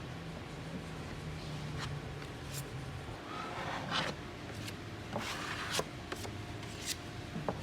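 Handling noises: two rubbing or scraping swishes and a few light clicks over a low steady hum.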